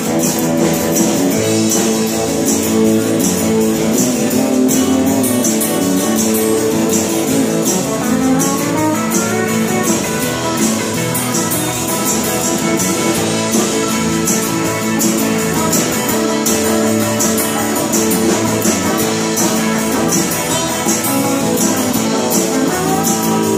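Live country band playing an instrumental break without vocals: acoustic and electric guitars over bass and drums, with a tambourine keeping a steady beat. A guitar line slides up in pitch about a third of the way in and again near the end.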